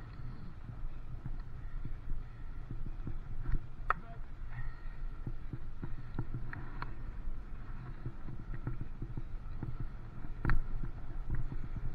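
Bicycle rolling along a tarmac lane, heard from the bike-mounted camera: a steady low rumble of tyres and wind with frequent small rattles, and two sharper knocks, about four seconds in and again near the end.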